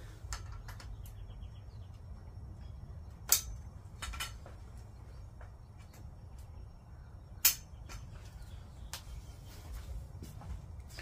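Plastic tubes of a Step2 Pump & Splash Shady Oasis frame being pushed into their connectors, giving sharp clicks as they seat: two loud snaps about a third and two-thirds of the way through, with softer knocks of handling between. A low steady background rumble runs underneath.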